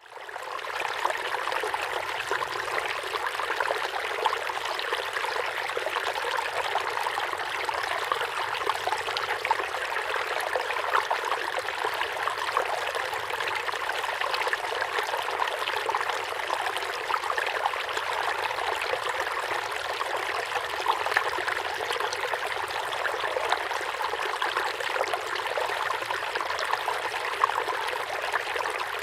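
River water flowing over a streambed, a steady rush flecked with many small splashes, fading in over the first second.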